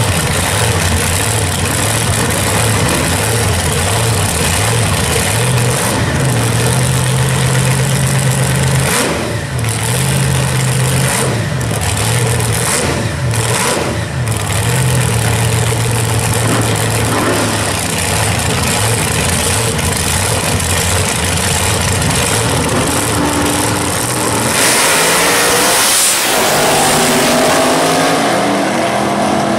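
Two drag racing cars' engines idling with a lumpy, uneven beat at the starting line and blipped a few times, then launched at full throttle about three-quarters of the way in, the engine note climbing as the cars accelerate away down the strip.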